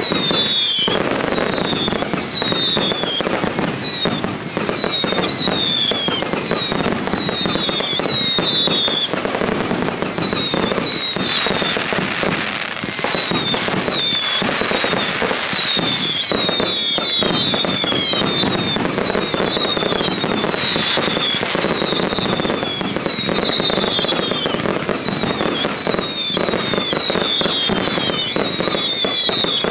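Aerial fireworks going off in a dense barrage of bangs and crackling. Through it runs a string of high whistles, each falling in pitch, one after another with a short break near the middle.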